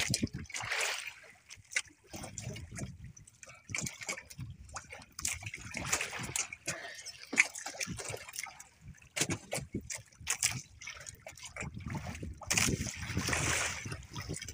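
Water splashing and trickling at the side of a small outrigger canoe as a hooked fish is lifted out on a nylon hand line, with many short knocks and clicks from the line and fish being handled in the wooden hull.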